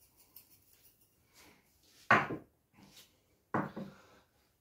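Faint quick ticking during the salting, then two sharp knocks about a second and a half apart, like a container or spice pot set down on a kitchen worktop.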